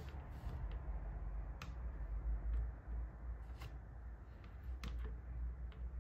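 Small plastic clicks, scattered irregularly about half a second to a second apart, as the jointed plastic parts of a Dummy 13 action figure are snapped and moved by hand. A steady low hum runs underneath.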